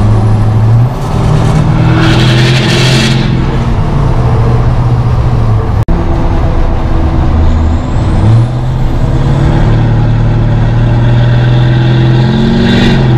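LBZ Duramax 6.6-litre V8 turbodiesel with a 5-inch straight-pipe exhaust, pulling hard under acceleration, heard from inside the cab. Its deep note steps up in pitch twice, about a second in and again near eight seconds, each time with a faint high whistle rising over it.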